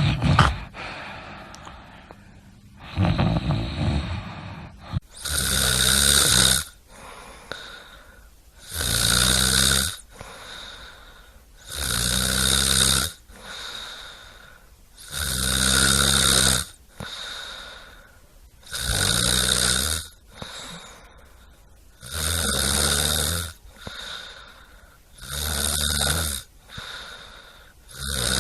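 A person snoring in a steady rhythm, one rasping snore about every three and a half seconds, after a less regular start.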